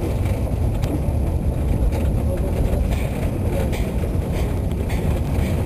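Narrow-gauge train wagon rolling along the track: a steady low rumble from the running gear with faint irregular clicks from the wheels on the rails, mixed with wind buffeting the microphone.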